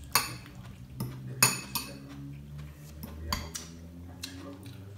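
Metal fork clinking and scraping in a glass bowl of coleslaw: a run of sharp clinks, the loudest about a second and a half in.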